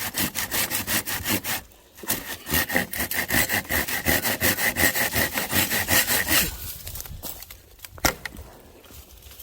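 Hand saw cutting through a dead log in quick back-and-forth strokes, awkwardly worked with one hand. The sawing breaks off briefly about two seconds in, stops about six and a half seconds in, and a single sharp knock comes near the end.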